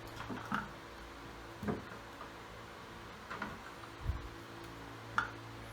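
Handling sounds from a circular saw being turned over in the hands: a few faint, scattered clicks and knocks, with one dull thump about four seconds in, over a steady low hum.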